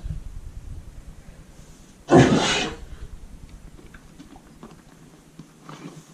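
A horse gives one hard, explosive cough about two seconds in, followed by faint rustling, with a fainter short burst near the end. It is a chronic cough that the owner treated as allergic.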